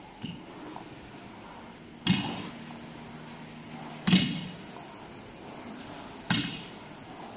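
Barbell loaded with rubber bumper plates set down hard on the gym floor three times, about two seconds apart, each landing a sharp thud with a short metallic ring from the bar and plates: the bar returning to the floor between repetitions.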